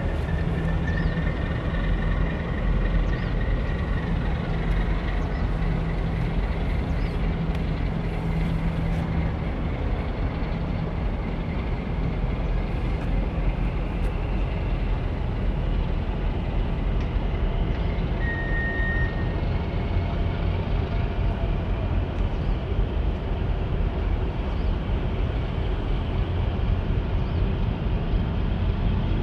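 Harbour tug's diesel engines running with a steady deep rumble as the tug pushes against a large container ship's hull.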